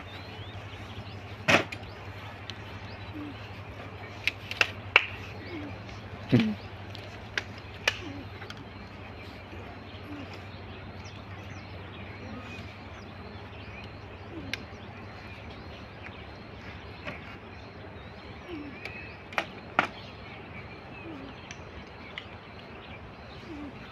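Steady outdoor background noise with a low hum, broken by about ten sharp knocks or clicks, several in quick succession a few seconds in and a pair near the end, with faint bird chirps.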